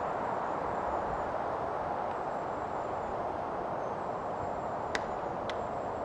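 Pileated woodpecker pecking at dead black walnut wood: two sharp knocks near the end, about half a second apart, the first the louder. Under them runs a steady background hiss.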